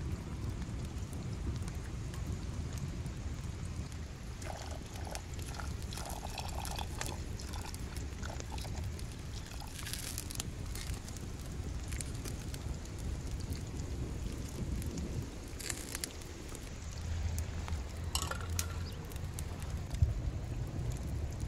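Wood fire burning under a pot of rice in water, with a steady low rumble, liquid pouring and bubbling sounds, and scattered small crackles. A single sharp knock near the end.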